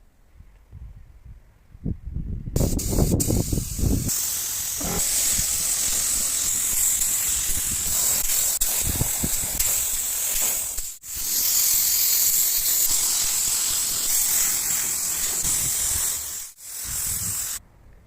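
Loud, steady hiss of compressed air spraying, in several cut-together stretches that stop abruptly, with a few low knocks near the start.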